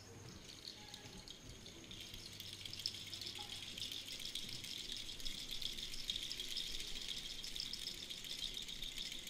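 A hand-played percussion rattle of many small beads or seeds makes a soft, continuous shimmering rattle that grows gradually louder. It is a sparse percussion introduction before the ensemble comes in.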